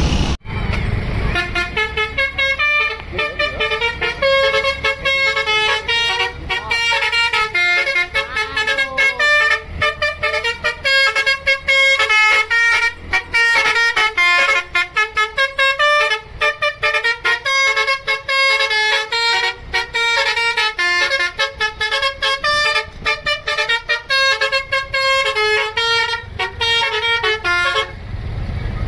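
Basuri telolet bus horn playing a melody: a fast run of short, loud multi-tone horn notes stepping up and down in pitch, with sharp clicks as the notes switch. It starts about half a second in.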